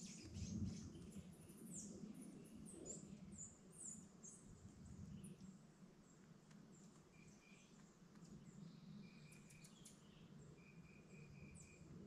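Faint calls of wild forest birds: thin, high chirps scattered throughout, and in the second half short runs of four or five evenly repeated notes, over a low, steady background hum.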